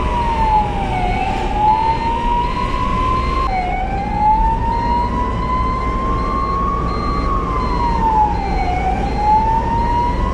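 Ambulance siren in a slow wail, its pitch gliding up and down over a few seconds at a time and dropping suddenly back to its low note about three and a half seconds in, over steady engine and road rumble.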